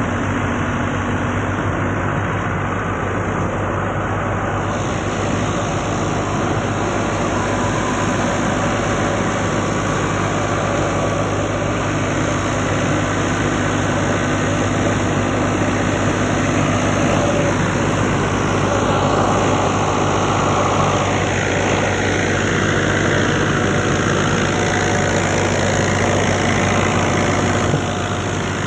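Fiat 640 tractor's four-cylinder diesel engine running steadily under load, driving a wheat thresher whose machinery runs continuously alongside it.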